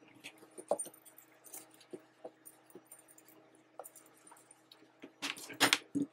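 Handling of a faux-leather sling bag and its strap hardware: scattered small metal clicks and rustles as the strap is clipped on, with a louder burst of rustling about five seconds in.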